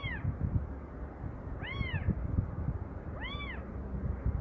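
A kitten trapped in a pipe meowing three times, about a second and a half apart, each call short and rising then falling in pitch. Low knocking and rustling run underneath.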